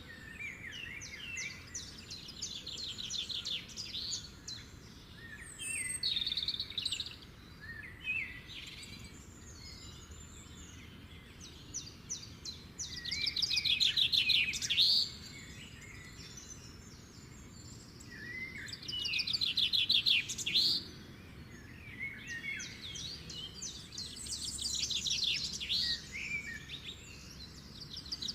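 Birds calling in repeated bouts of rapid, high-pitched chittering trills, each lasting a few seconds, loudest about halfway through and again about two-thirds of the way in.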